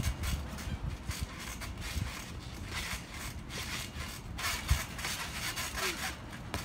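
Trampoline creaking and rattling, with repeated low thuds, as two people bounce and jump on the mat.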